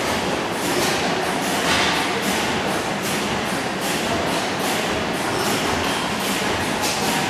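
Several antique hit-and-miss gas engines running at once, a steady clatter of overlapping exhaust pops and clicks.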